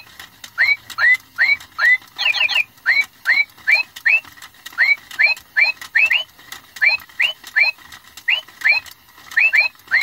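Animated singing bird toy (a macaw on a perch) playing electronic bird chirps: a steady series of short rising chirps, about two or three a second, broken now and then by a quick run of three.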